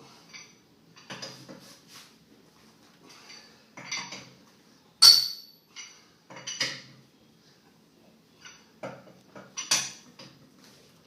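Metal clanks and clinks of a wrench on the wheel bolts as they are retightened by hand, about seven knocks spread out irregularly. The loudest comes about five seconds in and rings briefly.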